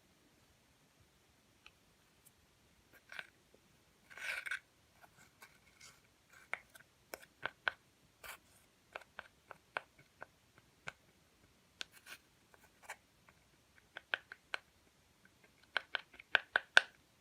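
Slime being handled, giving irregular sharp clicks and crackles, with a brief scratchy rustle about four seconds in and a quick run of louder clicks near the end.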